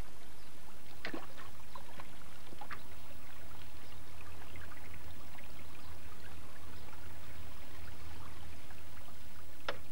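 Steady running, trickling stream water, with a few faint ticks scattered through it.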